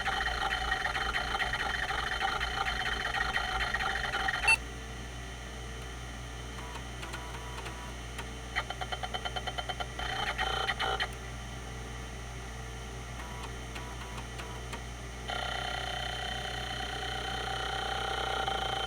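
Quantum Q540 hard drive with a rotary voice-coil actuator, seeking with a squeaking, fast-ticking mechanical sound. It stops with a sharp click about four and a half seconds in, leaving a quieter steady hum broken by a quick run of ticks and a short louder burst midway. The squeaking seek sound starts again near the end.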